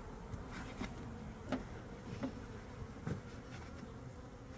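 Honeybee colony buzzing steadily at the open hive, with a few faint clicks.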